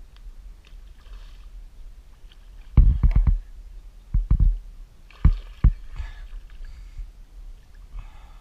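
Hollow knocks and bumps on a kayak's hull, in a quick cluster about three seconds in, another just after four seconds, and two single knocks near five and a half seconds, over faint water noise.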